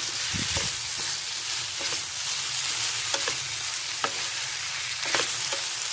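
Potato sticks sizzling steadily in coconut oil in a non-stick pan, stirred with a wooden spatula that gives a few short scrapes and knocks against the pan.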